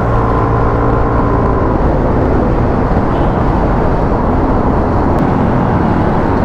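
Wind buffeting the microphone while riding a motor scooter, over the engine's steady running. A steady hum fades out about two seconds in.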